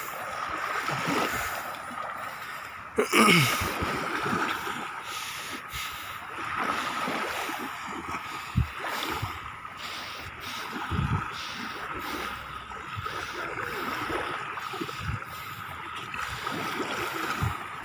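Small waves lapping on a sandy shore and a child's feet splashing through shallow seawater, with a faint steady high hum underneath.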